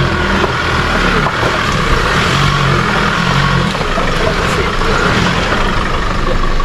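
A four-wheel-drive's engine running at low revs while it creeps over rough ground, under a steady rushing noise.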